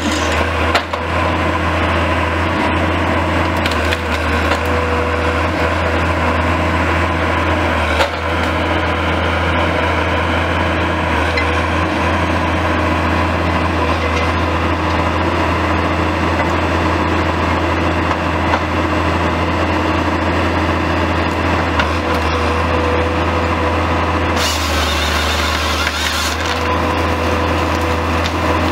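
Timberjack 1070 harvester at work: the diesel engine runs steadily under load, with a faint whine that comes and goes. Over it, wood cracks and splinters as the harvester head handles the stems, with an occasional sharp knock.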